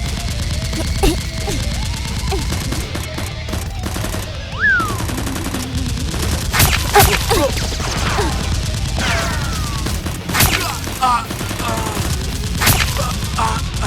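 Rapid gunfire sound effects, bursts of automatic fire with several louder single shots, over a steady low rumble of background score.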